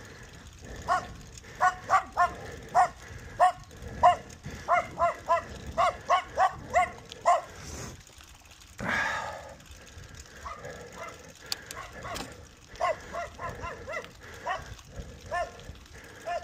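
Dog barking in quick runs of short, sharp barks, with a pause in the middle. A brief rushing noise comes about nine seconds in.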